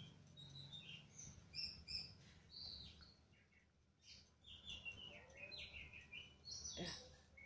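Lovebird chicks chirping faintly: many short, high calls, several falling in pitch, typical of chicks begging while being hand-fed. A sharper sound comes near the end.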